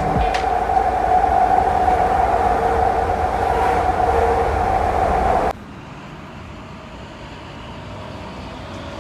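Steady running noise of a moving train with a held whine, heard from inside; it cuts off abruptly about five and a half seconds in, leaving quieter steady background noise.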